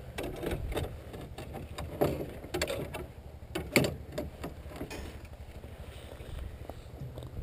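ATV engine running as it tows a wooden box sled over the ice, a steady low rumble, with the gear in the sled knocking and rattling in irregular clatters; one knock about halfway through is the loudest.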